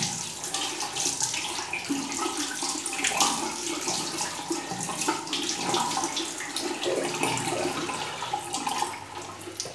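Water running from a tap and splashing unevenly as a man rinses his freshly clipped head under it.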